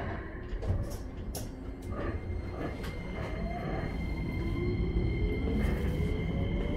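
Keikyu 1000 series train's Toyo IGBT-VVVF inverter and traction motors, heard from inside the carriage as the train pulls away: a few clicks and knocks, then from about three seconds in a whine that rises steadily in pitch over a rumble that grows louder as the train speeds up.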